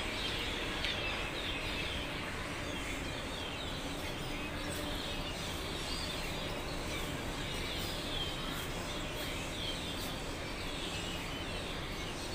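A flock of small birds chirping in the trees, with many short, high, falling chirps following one another without pause, over a steady low background rumble.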